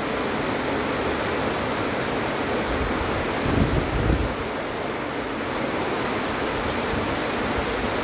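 Heavy rain pouring steadily as an even hiss, with a short low buffet of wind on the microphone about three and a half seconds in.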